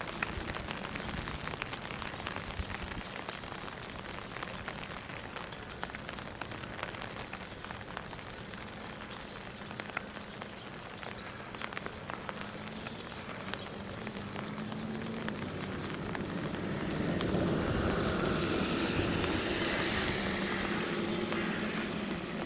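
Light rain pattering, with scattered drops ticking, over a low distant hum. About three quarters of the way in, a broad rushing noise of a passing engine swells up, then eases off near the end.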